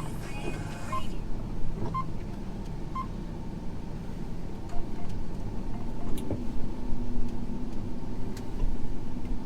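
John Deere T670i combine harvester engine running steadily, heard from the cab, with a short electronic beep about once a second for the first few seconds.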